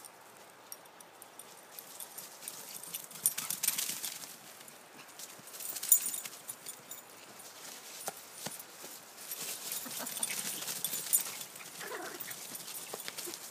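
Footsteps and running paws crunching and rustling through dry fallen leaves, in irregular bursts. Near the end comes a dog's brief whine.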